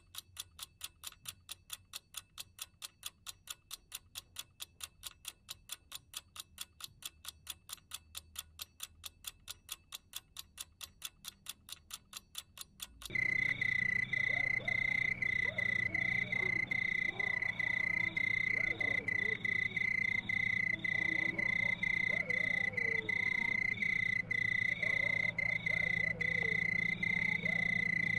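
A clock ticking with steady, evenly spaced ticks. About halfway through it cuts suddenly to a louder night chorus of insects or frogs, a continuous high-pitched trill pulsing at a regular rate over a low hum.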